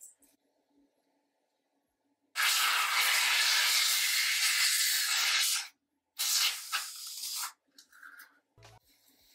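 Spray of hair product hissing in two long bursts, the first about three seconds, the second about a second long, with a soft thump near the end.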